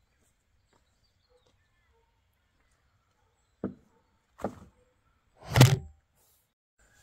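Two sharp knocks a little under a second apart, then a louder, heavier thump with a short rumble as the camera is knocked.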